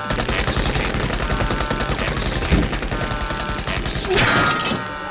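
Wall-mounted automatic machine-gun turrets firing long runs of rapid shots.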